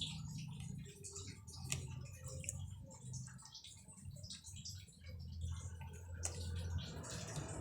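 Eating sounds: chewing and small scattered clicks as rice and crisp fried dried fish (tuyo) are eaten, over a low steady hum.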